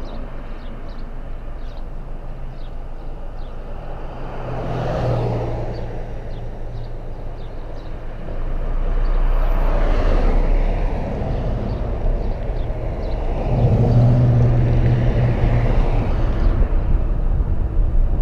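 City street traffic heard from a car: passing vehicles swell by one after another with a low engine hum, over steady road noise. The noise grows louder about eight seconds in and stays up as the car gets moving.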